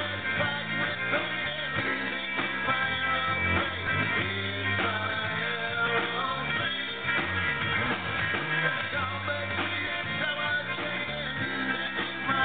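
Live rock band playing a song: electric guitars, bass and drums.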